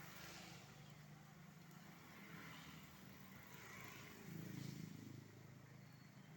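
Faint low hum of a vehicle engine, swelling briefly about four and a half seconds in.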